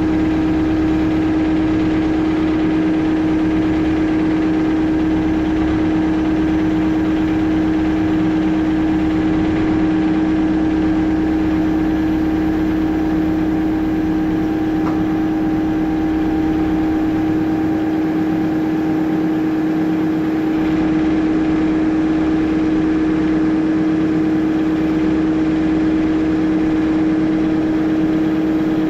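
A motor running steadily at one unchanging pitch, a constant hum with overtones that holds for the whole stretch.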